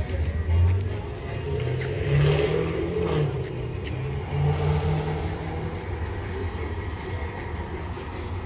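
Low rumble of a motor vehicle engine running, its pitch swelling a little about two seconds in and again around five seconds.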